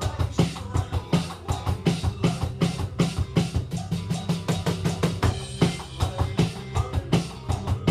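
Electronic drum kit played in a steady rock groove, with bass drum and snare hits falling close together throughout, over a backing track of held bass and instrument notes.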